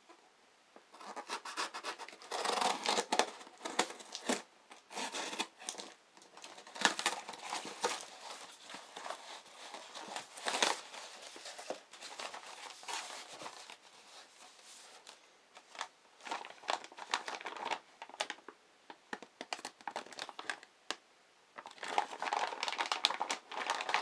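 A tape-wrapped cardboard parcel being torn open by hand, then a plastic bag and foam wrap crinkling as the contents are pulled out, in irregular bursts of tearing and rustling.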